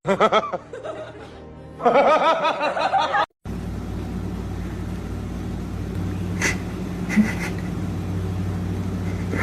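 Background music with laughter-like voices for about three seconds, then an abrupt cut to a steady low hum with faint hiss and a couple of brief clicks.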